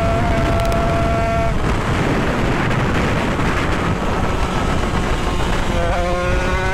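Tuned Derbi 50cc two-stroke engine running at high revs, then cut off the throttle about a second and a half in so that only wind rush is heard for about four seconds, before it picks up again near the end with a slowly rising pitch.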